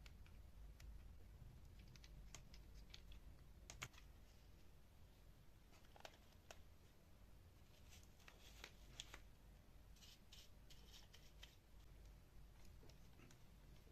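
Near silence: faint scattered clicks and light taps, more of them in the second half, over a low steady hum.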